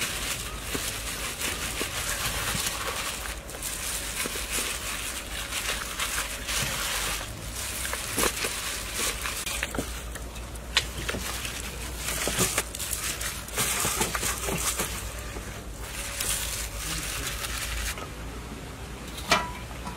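Wet squelching and rubbing in uneven bursts as hands massage a paste marinade into a whole raw chicken, with small clicks throughout. Near the end comes a single sharp metallic clank that rings briefly.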